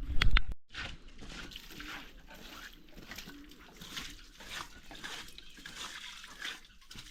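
Water splashing and trickling while a rabbit hutch is washed out, uneven and continuous, after a loud bump at the very start.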